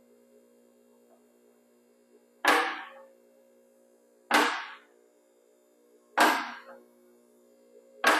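Two-post car lift carriage rising, its safety lock clanking four times, about every two seconds, as the latch drops over each notch of the lock ladder, each clank ringing briefly. A faint steady hum runs underneath.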